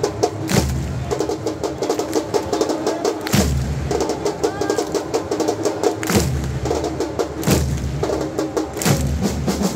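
Supporters' drum section playing a fast steady beat, with deep bass-drum hits about every three seconds, under a crowd chanting together.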